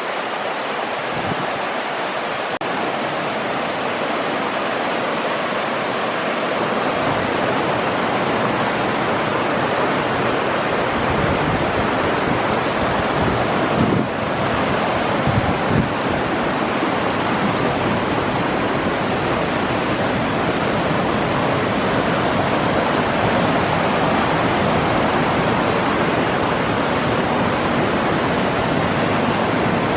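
Steady rushing noise of a heavy rainstorm, with wind and pouring water blending into one continuous roar and wind buffeting the microphone. There are a couple of brief low bumps about halfway through.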